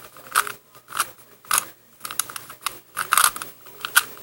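Rubik's cube layers being turned in quick succession while an algorithm is executed, making a series of short plastic clicks and clacks, roughly two a second.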